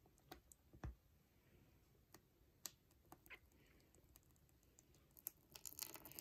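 Near silence with a few faint, scattered clicks and light taps, a quick run of them near the end.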